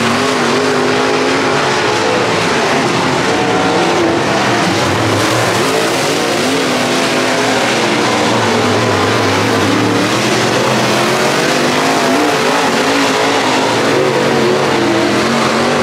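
Dirt late model race car engines running hard at racing speed, several engine notes rising and falling together.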